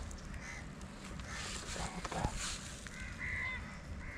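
A bird calling: a few short calls about three seconds in, over a steady outdoor background hiss.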